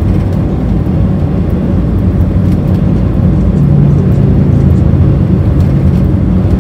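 Steady engine and tyre drone inside an RV's cab cruising at highway speed, a low hum that swells briefly about midway.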